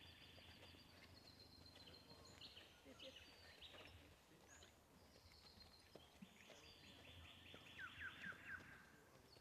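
Near silence with faint birdsong: several birds trilling and chirping, with a quick run of falling chirps near the end.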